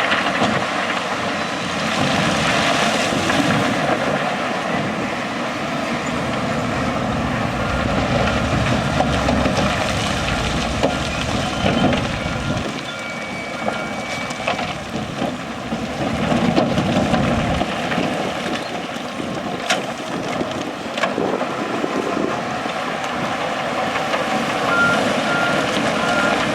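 Diesel earthmoving machinery running steadily, with a backup alarm beeping near the end.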